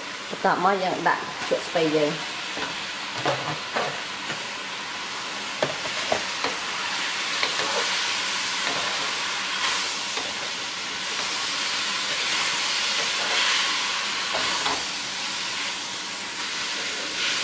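Pork and pickled mustard greens sizzling in a hot wok while a wooden spatula stirs and scrapes them, with short scraping clicks. The sizzle grows louder about seven seconds in.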